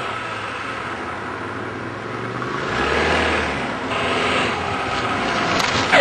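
A car driving on a road: engine and tyre noise, which grows louder about halfway through as the car passes close.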